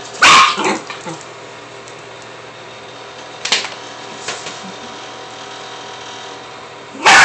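Dog barking once just after the start and again at the very end. Between the barks there are a couple of short, sharp sounds, about three and a half and four and a quarter seconds in, over a steady background hum.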